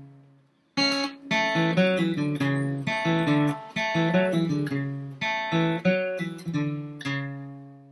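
Steel-string acoustic guitar, flatpicked: after a brief silence, a run of single picked notes playing a bluegrass lick.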